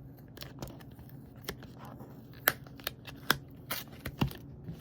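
Tape being cut and torn open on a taped-shut Apple Watch box: a scatter of sharp clicks and snips, the loudest in the second half.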